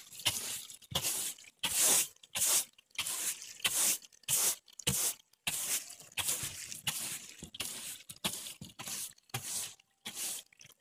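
Bristle broom scrubbing a wet, soapy rubber camper roof in repeated scratchy strokes, about one or two a second.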